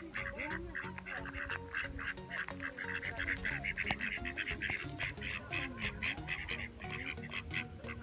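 Mallard ducks quacking in quick, continuous chatter.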